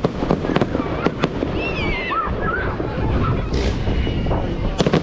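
Aerial fireworks display: shells bursting with a rapid run of sharp bangs and crackles over a steady low rumble. A wavering whistle sounds about two seconds in, and more bangs come near the end.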